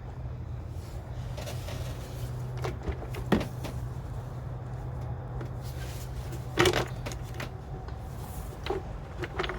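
Scattered knocks and clatters of engine-bay parts being handled as an intake pipe is worked loose, with one sharp knock about a third of the way in and the loudest clatter about two-thirds in, over a steady low hum.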